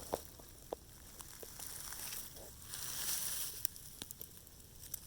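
Faint rustling with scattered light clicks and crackles, and a soft hiss that swells for about a second in the middle.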